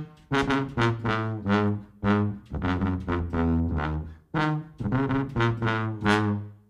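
Jazzy brass music: a run of short, punchy horn notes that stops just before the end.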